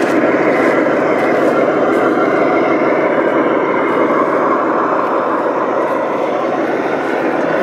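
Several radio-controlled model tanks driving over sand: a steady, dense mechanical noise of their electric drive motors and gearboxes and their running tracks.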